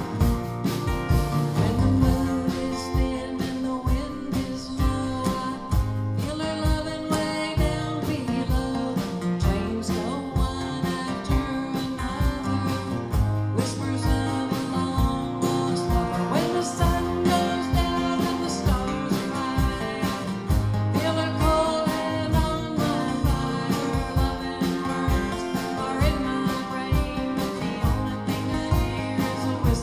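Acoustic guitars playing a country-style song live, with a steady strummed rhythm.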